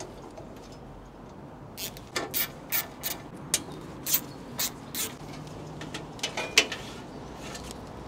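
Screwdriver working the mounting screws of an air-conditioning outdoor unit's fan motor: a string of sharp metallic clicks, irregular and about two a second, starting about two seconds in.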